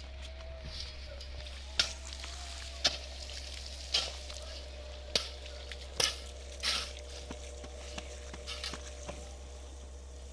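A hand tool working sand or earth: six sharp scraping strokes, about one a second, that stop after about seven seconds.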